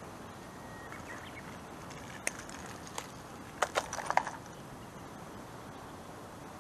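Light plastic clicks and rattles from a clear plastic tackle box being handled while a soft plastic worm is taken out: single clicks about two and three seconds in, then a quick cluster of clicks a little later, over steady outdoor background noise.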